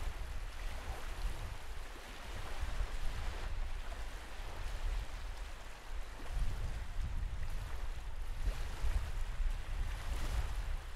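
Small wind-driven waves lapping and breaking on a sandy lake shore, with gusts of wind buffeting the microphone in a low rumble.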